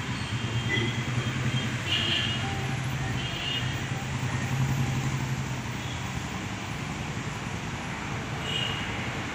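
Road traffic passing on a street, with motorcycles, an auto-rickshaw and a bus among it. A steady low engine hum is strongest for about the first six seconds, and a few short high tones sound above it.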